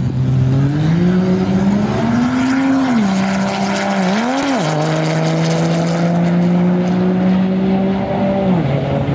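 Turbo-diesel pickup truck accelerating hard down a drag strip. The engine note climbs and then drops sharply about three seconds in at a gear change, climbs and drops again at a second shift, holds steady, and falls off near the end.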